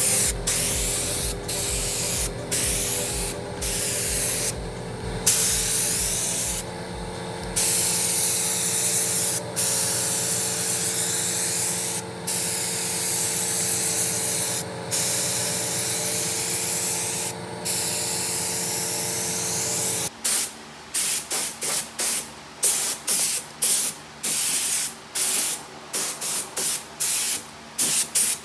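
Compressed-air paint spray gun hissing as it lays epoxy primer on a car chassis, in long passes broken by brief gaps where the trigger is released. A steady machine hum underneath stops abruptly about two-thirds of the way in, after which the gun sprays in many quick short bursts.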